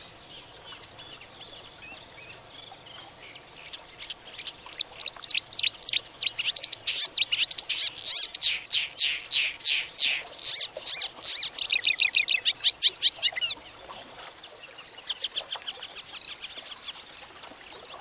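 A songbird sings one long, loud run of rapid high notes that speeds up into a trill and stops abruptly, followed by a few quieter calls.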